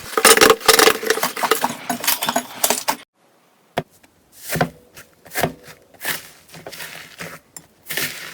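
Slime being squeezed and pressed by hand: dense crackling and clicking for about three seconds, then a brief silence, then sparser sticky squelches and pops.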